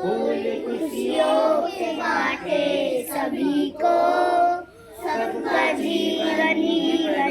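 Group of children singing a Hindi prayer song together, unaccompanied.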